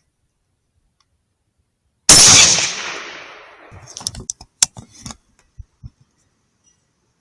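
A single rifle shot about two seconds in, very loud, its report dying away over about a second and a half. A quick run of sharp clicks follows, then two soft knocks.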